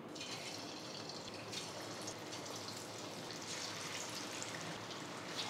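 Marinated chicken pieces deep-frying in hot oil in a kadai: a steady sizzle as the pieces go into the oil.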